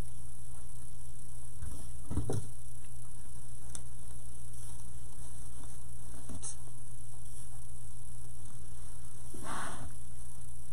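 Steady electrical mains hum, with a few faint rustles of ribbon being looped and pinched on a bow maker: one about two seconds in and a longer one near the end.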